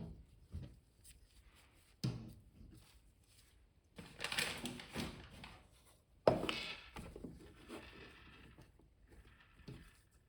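Handling noises while unboxing a boxed action figure: a few sharp knocks and thunks, with stretches of rustling and scraping in between.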